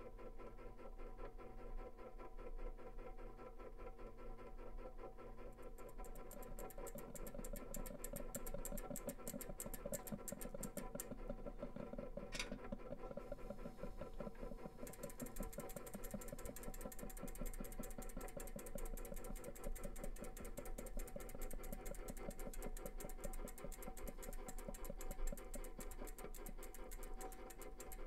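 A fast, even mechanical clatter over a steady low hum, growing brighter about six seconds in, with one sharp click about twelve seconds in.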